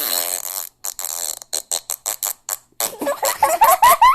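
Fart sound effect played from a phone app: a long hissy blast, then a sputtering string of shorter puffs that get shorter and quicker. High-pitched giggling breaks out near the end.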